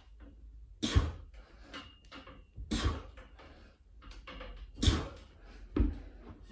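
Pull-ups on a freestanding pull-up bar station: a sharp breath out with a thump from the frame on each rep, three about two seconds apart and a fourth about a second after the third.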